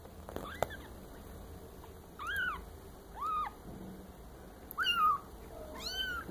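Young red Maine Coon kitten mewing: about four short, high, thin mews, each rising then falling in pitch, roughly a second apart, with a fainter one near the start.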